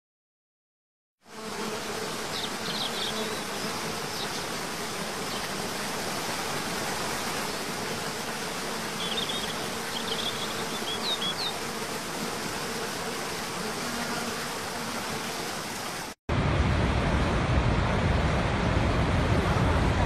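Waterfall rushing: a steady hiss of falling water with a few faint, short high chirps, starting about a second in. It cuts out for an instant about sixteen seconds in and gives way to a louder, deeper rush of a much larger waterfall.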